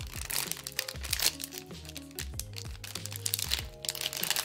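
Background music playing under crinkling and crackling of plastic packaging being handled, with many small clicks and rustles.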